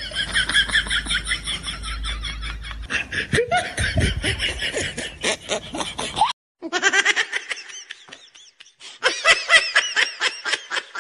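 A woman laughing in quick repeated bursts, breaking off briefly about six seconds in and then laughing again.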